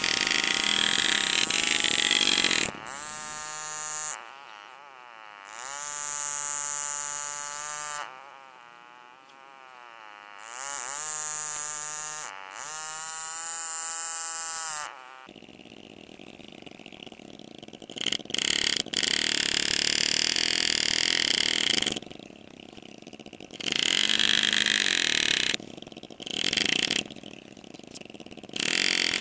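Pneumatic engraving handpiece buzzing as a graver cuts scrollwork into a sterling silver ring. It runs in spurts of a few seconds, its pitch gliding up and down as the stroke speed changes, with a loud hiss in the stronger spurts.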